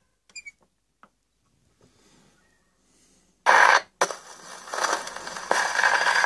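A few small clicks, then a loud scrape as the gramophone's soundbox needle is set down on a spinning shellac 78 rpm record. Surface hiss and crackle from the groove follow and build toward the end as the record begins to play.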